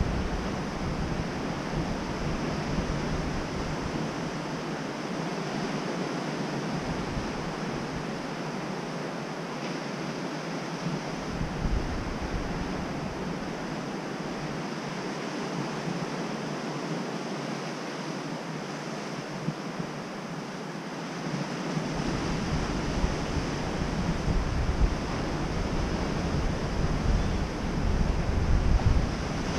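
Ocean surf breaking and washing over a sandy, rocky beach in a steady hiss, with wind buffeting the microphone: low rumbling gusts at the start, briefly about a third of the way in, and again over the last quarter.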